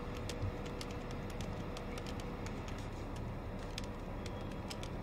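Computer keyboard being typed on: soft, irregular key clicks over a low steady room hum.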